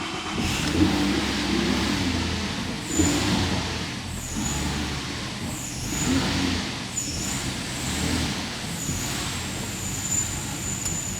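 Holden VZ Commodore's freshly swapped-in engine running just after being started, its sound swelling and easing every second or two.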